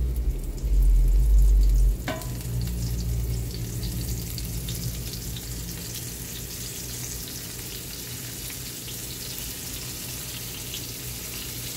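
Flour-dredged beef cubes sizzling and crackling in hot olive oil in a cast-iron pot as more pieces are laid in with tongs. A low rumble sits under the sizzle for the first two seconds, and the sizzle then goes on steadily.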